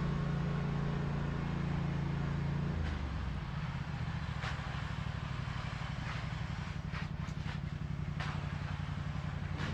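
Engine running steadily, its note shifting lower about three seconds in, with a few short knocks or scrapes over it.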